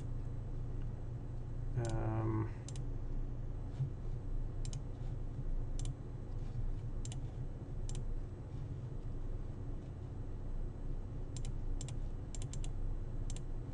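Computer mouse clicks, about a dozen short sharp clicks at uneven intervals with a quick run of three near the end, over a steady low hum.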